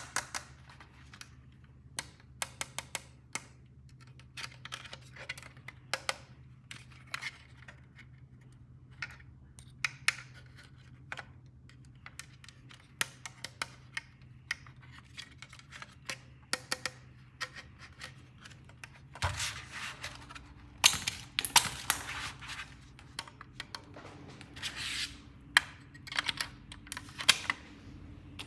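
Toy pieces being handled and set down in a string of sharp, irregular clicks and taps. From about two-thirds of the way through, longer handling noises mix in with the clicks.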